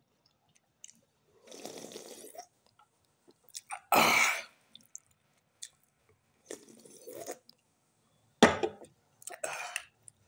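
Close-up mouth sounds of a person drinking from a can: gulps and short breathy sounds between sips. The loudest come about four seconds in and again about eight and a half seconds in.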